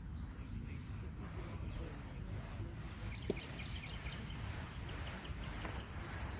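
Scratchy scraping of a hand tool being worked over the dry turf of a cricket pitch, growing louder in the second half as dead leaf and stem are disturbed. Wind rumbles on the microphone, with a few faint bird chirps and a sharp click about three seconds in.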